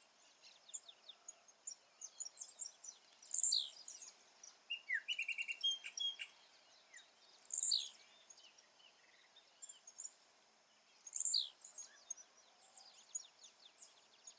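Blue-black grassquit (tiziu) singing: a short, high phrase that drops in pitch, given three times about four seconds apart. Softer chirps and calls of other birds fill the gaps.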